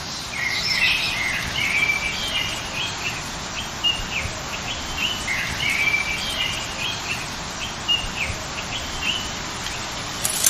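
A songbird singing the same phrase of chirps and trills twice, over a steady hiss of outdoor background noise.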